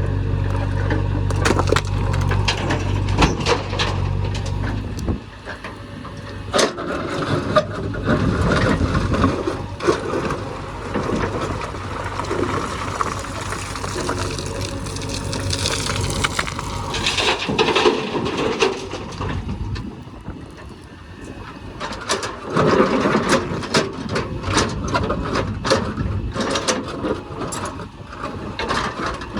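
A heavy diesel engine drones steadily for about the first five seconds, then irregular clattering, crunching and scraping of earth and stones takes over as a loader bucket digs and tips a load into a dumper.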